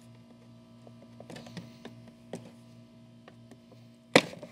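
A plastic pump shroud on a pressure washer being pried at with a tool: small clicks and creaks, then one loud sharp crack about four seconds in as it pops off.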